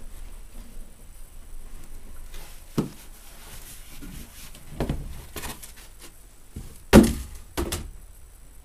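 A cardboard box knocked and set down against a wooden bench: a handful of dull thumps, the loudest about seven seconds in, followed quickly by another.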